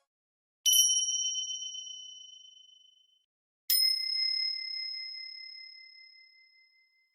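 Two separate ding sound effects, each a bright bell-like strike that rings out and fades away. The second, about three seconds after the first, is lower-pitched and rings longer.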